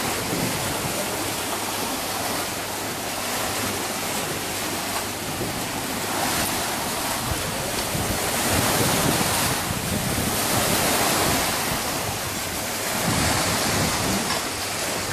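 Choppy sea waves washing against concrete blocks at the water's edge, with wind buffeting the microphone; the noise swells and eases, loudest about the middle.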